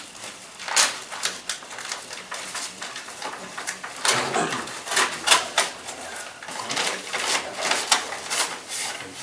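Paper crinkling and rustling as the sealed bid envelope is opened and the papers are taken out: a run of short, sharp rustles, busiest about four to six seconds in.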